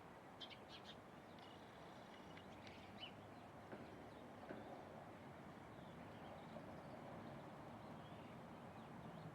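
Faint small-bird chirps and a short trill over a quiet steady background hiss, a few calls in the first three seconds and fainter after.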